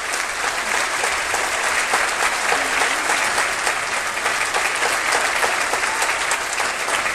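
Audience applauding steadily, many hands clapping at once, after a choral and dance performance.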